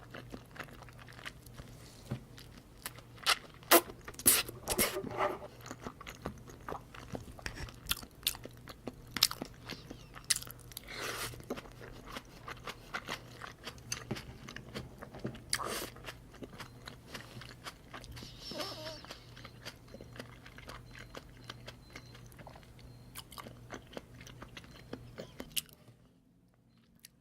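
A person chewing and eating salmon sashimi and salmon rolls close to the microphone, with many sharp mouth clicks and wet smacks. A steady low hum runs underneath and cuts out near the end.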